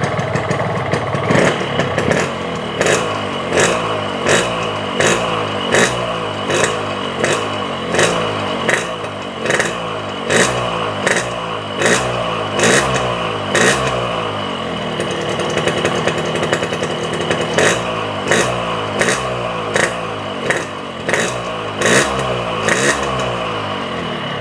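Warmed-up Yamaha RX-King two-stroke single-cylinder engine revved on the stand in quick throttle blips, about one every two-thirds of a second, with a short steadier stretch around the middle. By the owner's ear it sounds normal, neither rougher nor smoother than usual.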